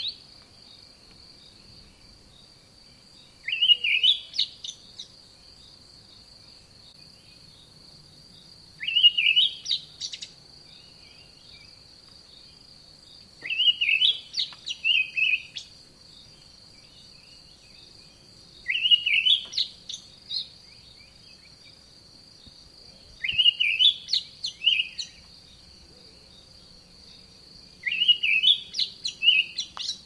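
Olive thrush singing: six short phrases of rising and falling notes, each about a second long, coming roughly every five seconds. A steady high insect buzz runs underneath.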